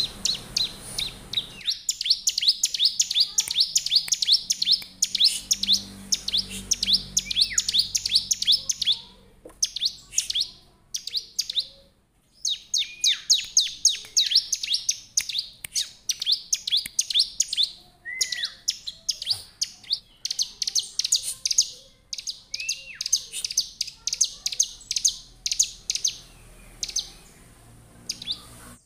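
Bar-winged prinia (ciblek) singing persistently: a fast run of sharp, high chirps, many to the second, in long bouts with brief pauses, and now and then a lower down-slurred note.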